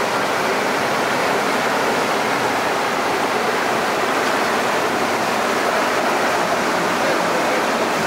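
Whitewater rapids rushing steadily: a continuous, even wash of churning river water.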